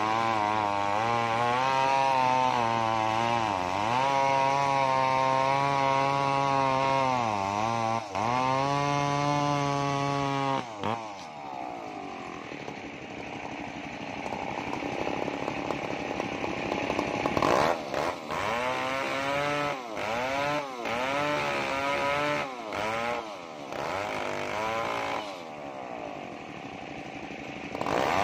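New West 070 two-stroke chainsaw with a 36-inch bar ripping lengthwise through a coconut log at full throttle, its pitch sagging and recovering under load. About eleven seconds in it comes out of the cut and drops to a lower run. Later it is revved in short blips several times, and it goes back into full-throttle cutting at the very end.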